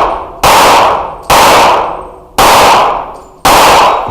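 Pistol gunfire in four very loud bursts, about a second apart, each ringing out with a fading echo off the indoor range.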